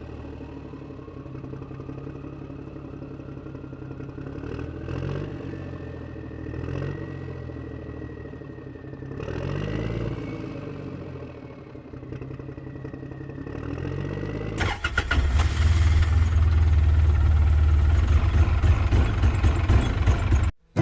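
Vehicle engine sound effect running steadily with a slowly rising whine. About fifteen seconds in it turns much louder and rougher, like revving, then cuts off abruptly just before the end.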